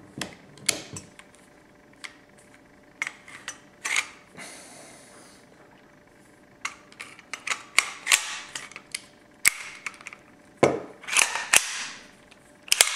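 Sharp metal clicks and clacks from the receiver and bolt of an Erma EMP-35 submachine gun as it is handled and taken apart. There is a brief scraping slide about four seconds in, and bunches of quick clacks around eight and eleven seconds.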